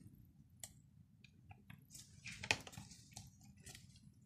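Faint scattered clicks and rustling of gloved hands handling a partly reassembled Nikon D7000 camera body while fitting a body panel, with a denser run of rustling and a sharper click about two and a half seconds in.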